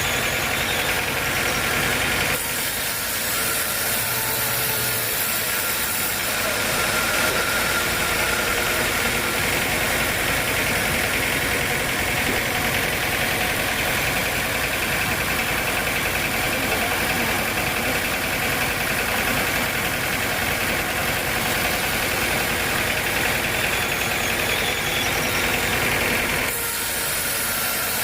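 Sawmill machinery running: a loud, steady mechanical drone with a hissing band over it, the tone shifting abruptly about two seconds in and again near the end.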